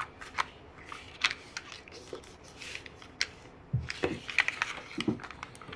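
Sheet of origami paper crinkling and crackling in irregular short bursts as it is folded and creased by hand, with a couple of duller knocks about four and five seconds in.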